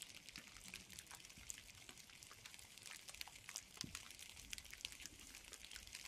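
Light rain in a forest: many faint, irregular ticks of drops falling on leaves, over a soft hiss.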